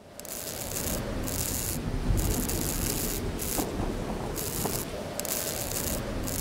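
A steady rasping noise with a high hiss that swells and fades about once a second.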